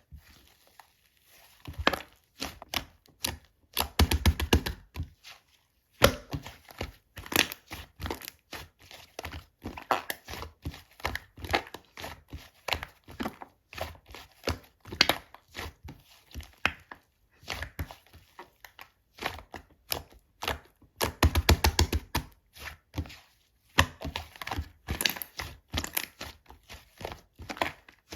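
Three-colour pastel slime being squeezed, pressed and mixed by hand, making rapid, irregular sticky clicks and pops with a few brief pauses.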